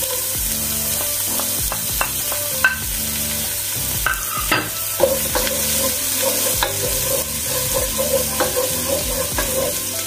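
Minced garlic sizzling as it fries in hot oil, stirred with a wooden spoon that now and then clicks and scrapes against the pot.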